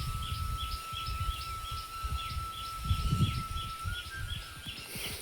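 A bird calling outdoors, repeating a short chirp about three or four times a second, with a steady whistle-like tone behind it and low wind rumble on the microphone.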